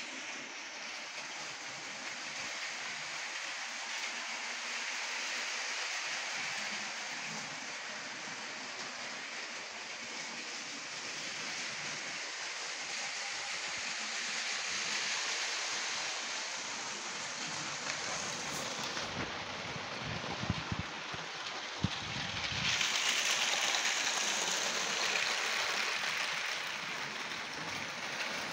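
Lego train rolling on plastic track, a steady hissing rattle of wheels and motor. There are a few sharp knocks about two-thirds of the way through, and the sound grows louder soon after.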